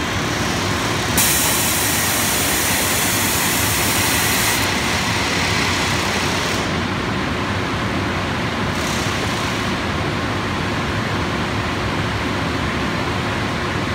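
Industrial conveyor oven and powered roller conveyor running with a steady machine hum. A loud hiss starts suddenly about a second in and dies away after about five seconds, and a second short hiss comes about two thirds of the way through.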